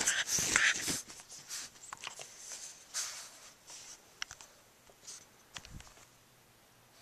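Bulldog puppy scuffling and mouthing close to the microphone. A burst of loud rustling and scratching in the first second, then scattered quieter rustles and clicks.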